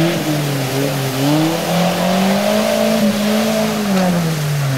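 Off-road 4x4's engine revving hard as it drives through deep mud. The revs climb over the first couple of seconds, hold high, then fall away near the end.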